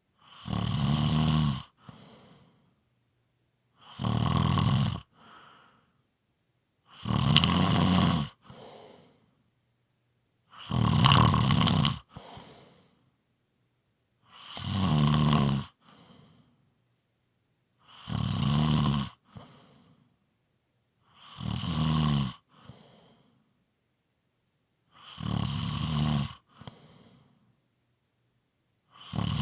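A person snoring heavily and regularly: a loud rattling snore about every three and a half seconds, each lasting about a second and a half and followed by a short, fainter breath.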